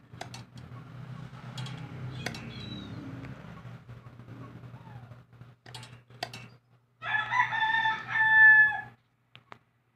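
A rooster crows once, a loud held call of about two seconds near the end. Before it come scattered light clicks and taps of metal parts being handled over a faint steady hum.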